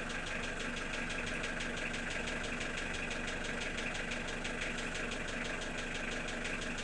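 Car engine idling with a steady, rapid, evenly spaced knock in time with the engine. It sounds like a connecting-rod knock, but the owner has opened up the rod bearings and rules them out.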